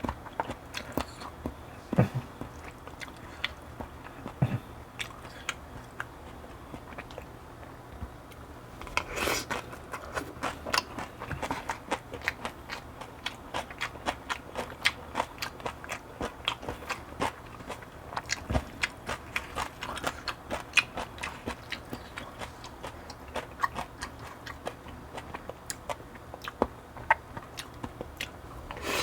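Close-miked chewing and eating of barley bibimbap and cheonggukjang, a steady stream of small wet clicks and mouth sounds. A longer burst of noise comes about nine seconds in.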